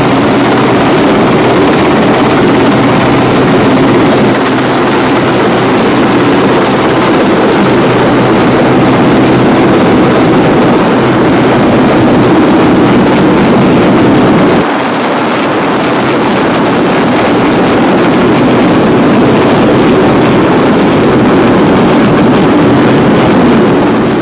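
Helicopter hovering low overhead: loud, steady rotor and engine noise, mixed with the running engines of the lifeboat underneath it.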